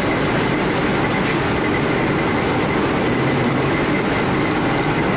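Steady, loud rushing drone of commercial kitchen machinery, with a faint high whine held throughout.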